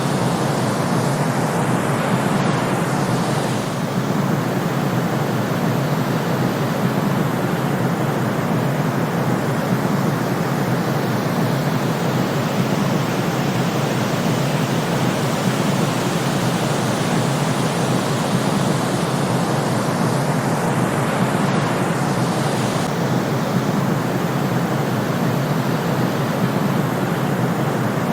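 Steady white noise for sleep: an even, unbroken hiss at constant loudness, weighted toward the low middle, with no rhythm or tone.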